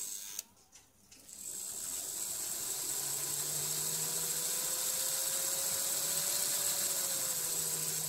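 Märklin 3046 model steam locomotive's motor and gearing running on a roller test stand. After a click just after the start, it starts up about a second in and runs steadily with a thin whine that rises slowly in pitch, then falls as it slows near the end.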